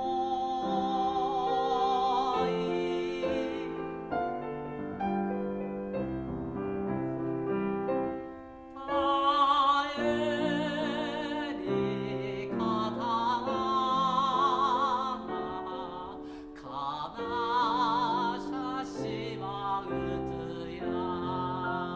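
A tenor singing with a wide vibrato over a grand piano accompaniment. The voice drops out for a moment about eight seconds in, then comes back louder on a high held phrase.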